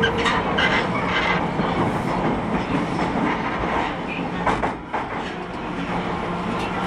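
Osaka Metro Midosuji Line train running, heard from inside the car: steady running noise with bursts of wheel clatter over rail joints, and a brief dip in the noise about five seconds in.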